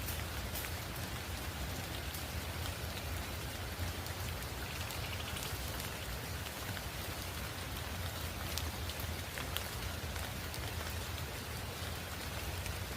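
Steady rain falling, with scattered sharp hits of individual drops landing close by.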